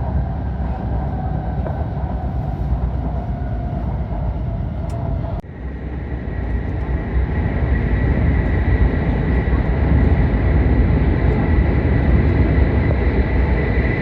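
Train running, a heavy low rumble of the rail ride. About five seconds in the sound breaks off abruptly and comes back with a steady high whine over the rumble, growing gradually louder.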